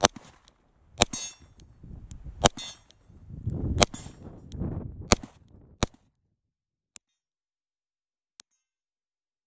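Six gunshots fired at a steady pace, a second or so apart, with a ringing clang after several as bullets strike steel target plates, and low wind noise between shots. After about six seconds the recording's sound cuts out, leaving only a couple of faint ticks.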